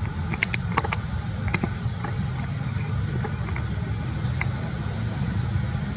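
A steady low rumble throughout, with a handful of short, sharp clicks or crackles, most of them in the first second and a half.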